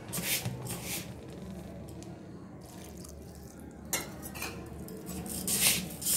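A hand working a crumbly flour, semolina and ghee mix in an aluminium pot, with a little water tipped in from a cupped palm dripping and splashing into it. The rubbing and squishing comes in short rustling bursts, the loudest near the end.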